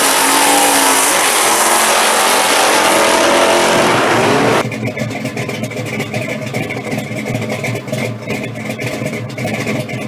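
Two drag-racing V8 cars, a 1962 Chevy Impala among them, running hard at full throttle, their engine pitch swinging and climbing. About four and a half seconds in, it cuts suddenly to a quieter, uneven rumble.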